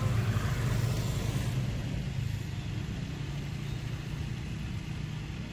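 Motor vehicle engine running with a steady low hum, slowly fading, with a wider hiss in the first second and a half.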